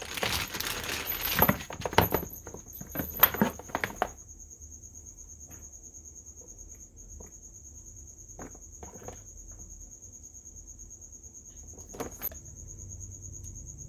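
Plastic packaging bag crinkling and cables clicking as soldering iron handles are handled and unpacked, for about the first four seconds. After that only a faint steady high tone with a few light handling clicks.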